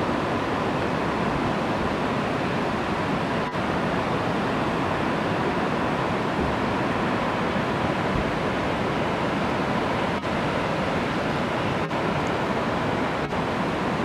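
Steady rush of falling water from several waterfalls cascading down the cliffs, an even continuous roar.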